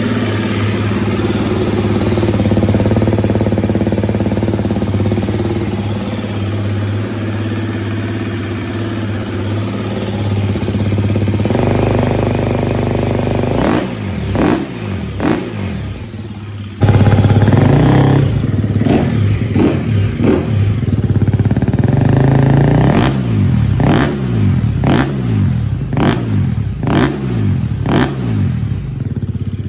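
2024 KTM 250 EXC-F's single-cylinder four-stroke engine idling on the standard exhaust, then blipped a few times about twelve seconds in. After a sudden change just past halfway, it idles and is revved in a string of quick blips through an Akrapovič exhaust.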